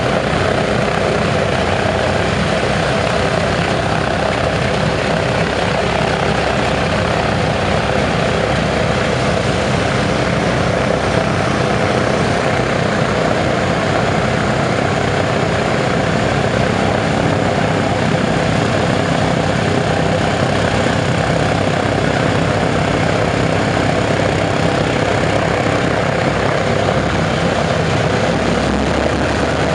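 Boeing B-29 Superfortress's Wright R-3350 eighteen-cylinder radial engines running steadily just after start-up, their propellers turning. The sound is a loud, even engine drone throughout.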